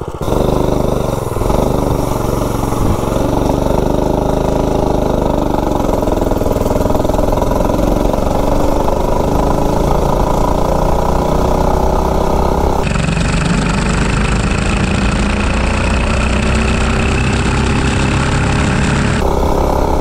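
Mini bike's single-cylinder Predator 212-based engine, governor removed, running at full throttle on a top-speed run. It opens up just after the start, then its pitch climbs slowly as the bike gathers speed, with wind rushing over the microphone.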